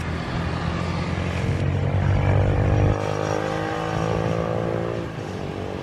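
Jet airliner engines running with a steady low drone. In the middle a droning tone rises a little in pitch and then eases off.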